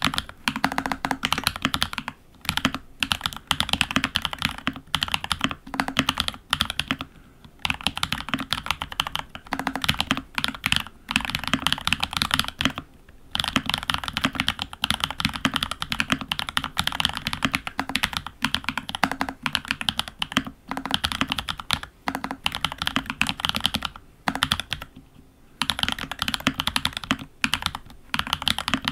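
Fast, continuous typing on a FEKER68 mechanical keyboard with lubed Holy Panda-style tactile switches (Huano Iceblue stems and springs in Gateron housings) under Olivia-clone keycaps: a dense stream of keystroke clacks, broken by brief pauses every few seconds.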